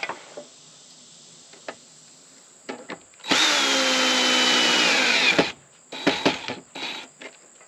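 Cordless drill driving a screw in one run of about two seconds, its motor pitch sagging slightly as the screw draws tight. A few light clicks and taps of handling come before and after it.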